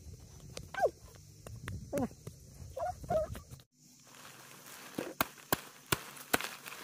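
A few short cries that fall in pitch. Then, from about five seconds in, a large knife hacks at a papery giant ants' nest among bamboo leaves: about six sharp chopping strikes.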